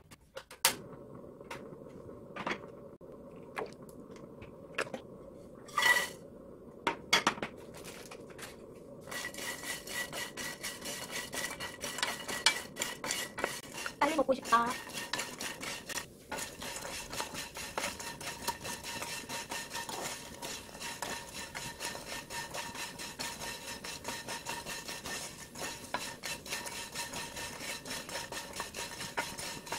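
Broken pieces of dry instant ramen noodles being stirred and pushed around a nonstick frying pan with a wooden spatula: a dense, steady scraping and rattling that starts about nine seconds in, after a few scattered knocks.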